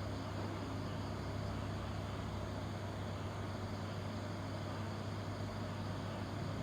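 An engine running steadily at an even speed, a constant low hum with no change in pitch.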